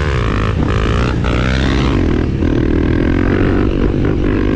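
300L motorcycle engine revving while riding, its pitch rising and falling as the throttle opens and closes.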